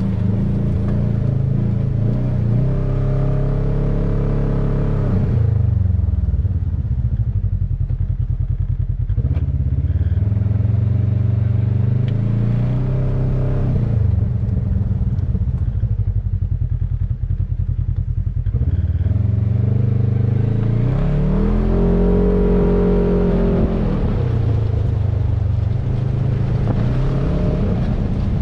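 Polaris RZR side-by-side's engine running on a gravel trail. It revs up twice with a rising pitch, a few seconds in and again about two-thirds of the way through, and drops back to a low, pulsing note in between.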